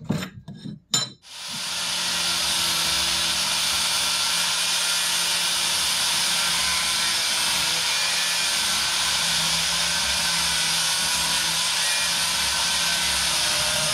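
A few short knocks, then an angle grinder starts about a second in and runs steadily, its abrasive disc cutting through a steel plate with a continuous grinding noise.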